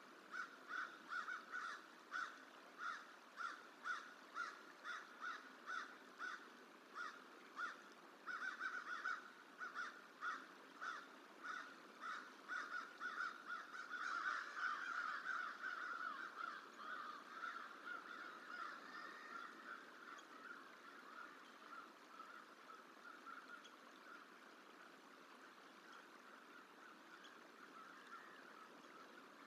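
American crow cawing repeatedly, about two caws a second, mobbing a juvenile bald eagle to drive it off. The calls crowd together about halfway through, then grow fainter and die away, leaving a faint steady hiss.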